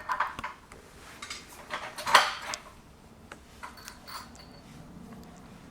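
Metal hardware clinking and rattling as it is handled and fitted: a few short bursts of sharp clinks, the loudest about two seconds in, and one brief ringing clink near the end.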